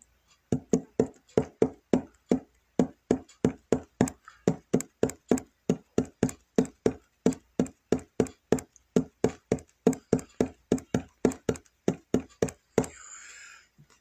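Steady rhythmic tapping or knocking, about three short sharp knocks a second, which stops shortly before the end and is followed by a brief soft rustle.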